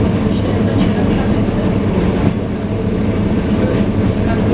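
ED9M electric multiple unit heard from inside the carriage while running: a steady low rumble of wheels and running gear, with a light clatter of the wheels on the rails.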